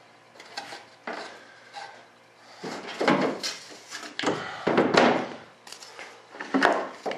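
A thin wooden strip being handled and slid into place in a model airplane's fuselage: a series of short wooden scrapes and knocks, the loudest about halfway through.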